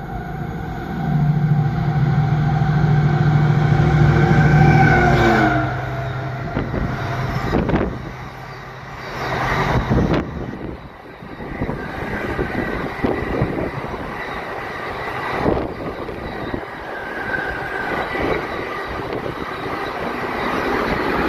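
Container freight train passing close at speed. The locomotive's steady drone and its tones drop in pitch as it goes by about five seconds in. Then comes the rumble and clatter of the container wagons rolling past, with sharp wheel knocks every few seconds.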